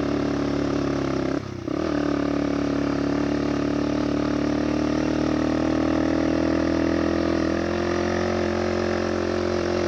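Motorcycle engine running steadily under throttle, pulling in second gear up a steep road. About a second and a half in, the engine note briefly drops and then picks back up.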